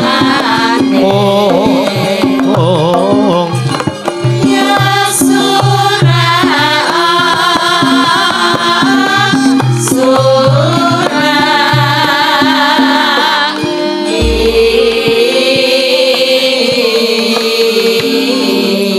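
Javanese gamelan accompaniment for wayang kulit: tuned percussion and kendang hand drums, with a wavering vocal line over them. A deep low note sounds about fourteen seconds in.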